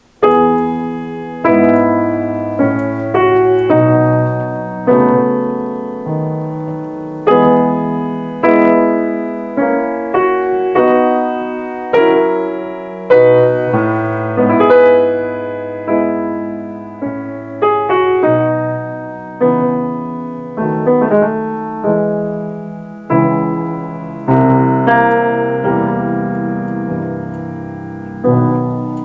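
Yamaha grand piano played solo: a slow piece in a solemn, sacred mood, full chords struck about every second or so and left to ring and fade.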